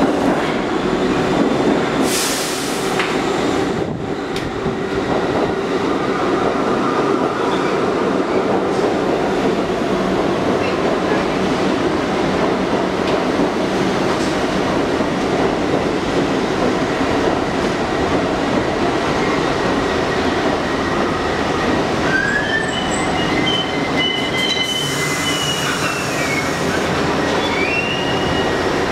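R62A subway train running into an underground station and along the platform with a steady loud rumble of wheels on rail, and a brief hiss about two seconds in. Near the end, high squealing tones rise, hold and fall as the train slows.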